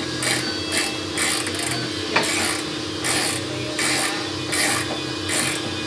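Hand ratchet wrench being worked in short, uneven strokes, tightening a bolt during the rear shock installation, with one sharp click about two seconds in. A steady low hum runs underneath.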